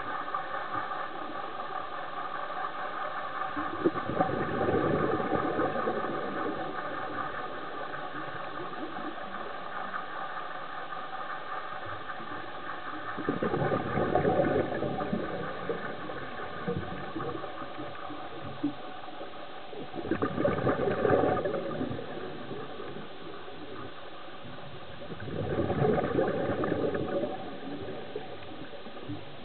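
Scuba diver's exhaled bubbles from the regulator rumbling underwater in four swells of two to three seconds, roughly every six to seven seconds with each breath out, over a steady underwater hum of several tones.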